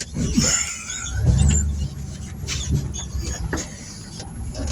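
Service truck driving, its engine running with a louder stretch about a second in, with squeaks and clicking rattles over it.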